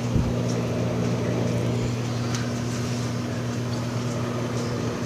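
Microwave oven running with a steady low hum. There is a short, soft bump just after the start.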